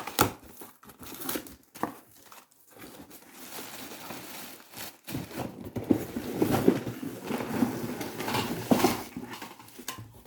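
Cardboard box being opened and its packaging handled: irregular rustling, crinkling and scraping with scattered knocks, busiest in the second half.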